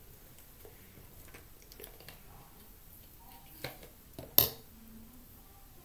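A few faint taps and clicks of small makeup items being handled, then a clearer click and, about a second later, one sharp click.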